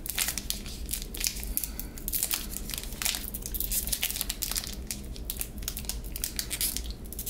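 Foil wrapper of a Revolution basketball trading-card pack being crinkled, twisted and picked at by hand while trying to tear it open, with a dense, irregular crackling throughout. The pack is tough to get into.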